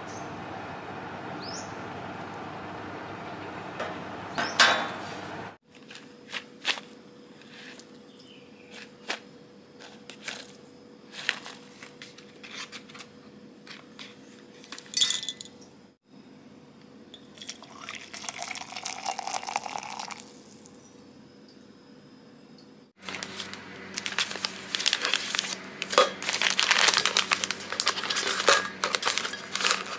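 A string of small handling noises, light taps, clicks and rustles, broken up by cuts. From about three-quarters of the way through, a plastic tea pouch crinkles and dried flower tea rattles in a dense patter as it is poured into a canister.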